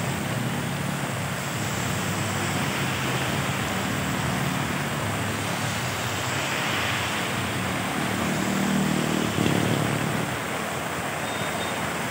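Heavy rain falling steadily on a paved street, with motor traffic passing on the wet road; one vehicle is loudest about nine seconds in.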